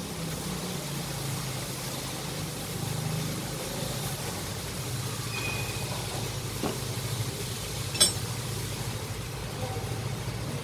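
Steady low mechanical drone of running workshop machinery, with one sharp metallic clink about eight seconds in.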